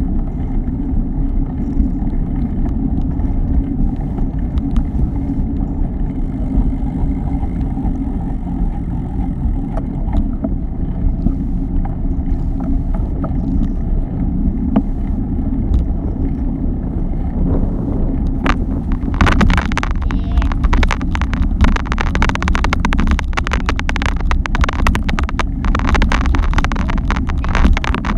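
Steady low wind rumble on the microphone of a camera riding along on a moving bike, mixed with road noise. About two-thirds of the way through, a dense run of rapid crackling and rattling joins it and continues.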